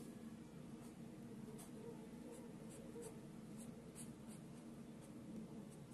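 Faint scratching of hand drawing on paper: short writing strokes at irregular intervals, over a low steady hum.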